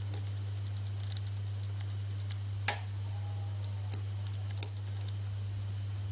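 Lock pick and tension tool working the pins of a five-pin SC1 lock cylinder, giving three sharp metallic clicks over a steady low hum.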